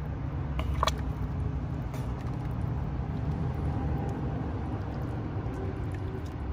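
A wooden spoon stirring thickened stew in a cast iron camp oven, with a few faint scrapes and clicks, the clearest about a second in, over a steady low rumble.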